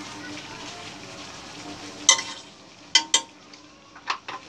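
Utensil stirring noodles in an aluminium pot over a steady hiss, then a few sharp metal clinks against the pot from about two seconds in.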